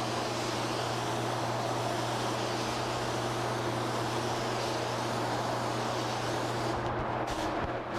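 Spray-finishing equipment running: a steady motor hum under an even hiss of air. The hiss thins out briefly near the end.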